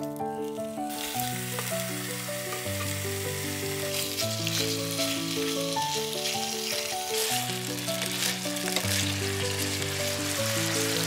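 Chicken breast pieces sizzling in hot oil in a frying pan, the sizzle starting about a second in as they are tipped in, with light clicks of a wooden spatula stirring them. Soft piano music plays underneath.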